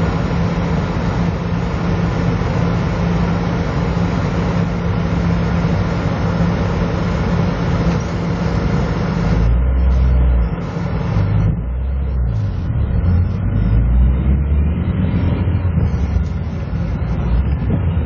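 Steady car-cabin noise in a car crawling through traffic in a snowstorm: a dense hiss over a low steady hum. About nine seconds in, the hiss drops away and a low uneven rumble takes over.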